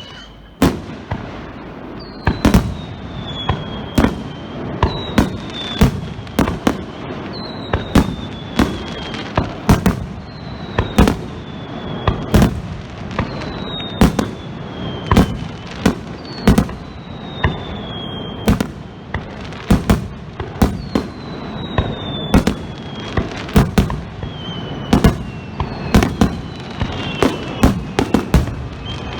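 Starmine fireworks barrage: aerial shells bursting one after another with sharp bangs, several in quick succession at times. A whistle falling in pitch sounds about every two seconds.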